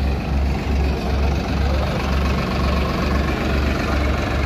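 Tractor diesel engine idling close by, a heavy low throb pulsing about twice a second.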